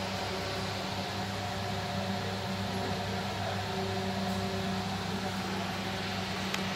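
Electric ceiling-mounted cabin fans running: a steady motor hum with an airy hiss, and a faint click near the end.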